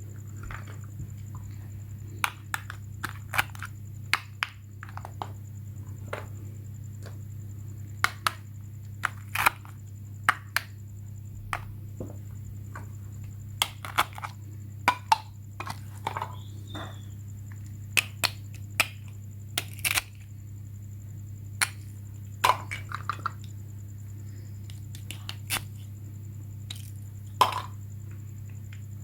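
Irregular sharp clicks and knocks, some in quick pairs, over a steady low hum and a faint high whine.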